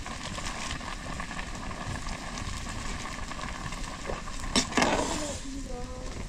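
Steady sizzling hiss of food cooking, with two sharp knocks about four and a half seconds in.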